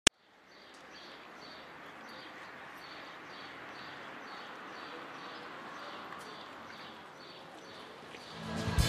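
Outdoor ambience: a steady wash of background noise with a small bird chirping over and over, about twice a second. A sharp click opens it, and music with a choir comes in near the end.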